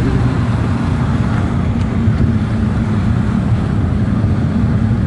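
Steady low rumble of a car driving, road and engine noise with no change in level.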